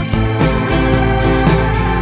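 Instrumental background music, with sustained notes that change every half second or so.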